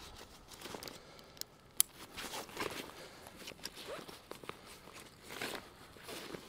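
Osprey Kestrel 38 nylon hiking backpack being handled and closed up: fabric rustling and zipper pulls, with one sharp click about two seconds in.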